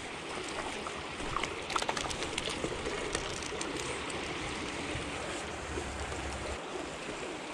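Steady rushing of river water, with a run of short clicks and knocks about one to three and a half seconds in.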